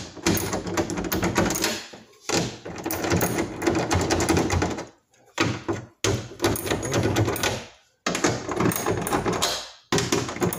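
Hand ratchet with a 10 mm socket clicking rapidly as grille nuts are run down and snugged. The clicking comes in runs of about two seconds, with short pauses as the ratchet is reset.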